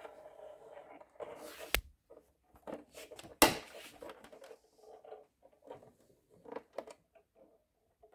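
Handling noise from a plastic toy radio-controlled boat: softer taps and rustles, and two sharp knocks, the louder one about three and a half seconds in as the hull is set down on a wooden table.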